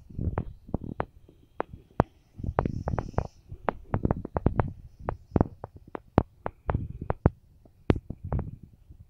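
Rumbling and crackling noise on a phone's microphone: irregular low rumbles broken by many sharp pops and crackles.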